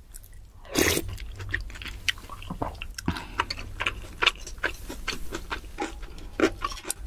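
Close-miked eating sounds: a loud wet mouthful taken from a spoon about a second in, then steady chewing with many small wet clicks and crackles.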